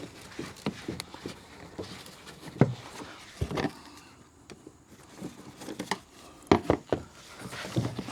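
Scattered knocks, taps and rustling of a pickup's plastic air intake hose and chamber being worked loose and pushed aside by hand, with a handful of louder knocks.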